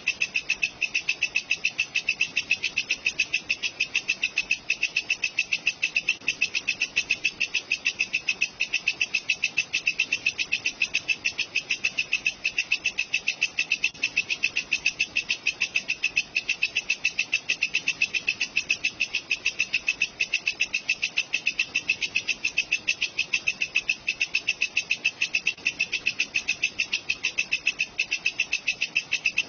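Walang kecek insect calling nonstop: a steady, rapid string of even, high-pitched pulses used as masteran for training songbirds.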